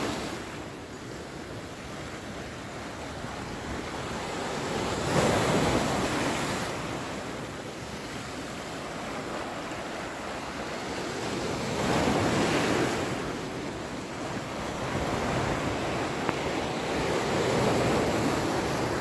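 Ocean waves breaking and washing in: a steady wash of surf that swells into three louder surges, about six seconds apart, each rising and then fading.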